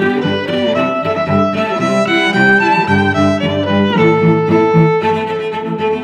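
Background instrumental music: a melody of held notes over a steady accompaniment.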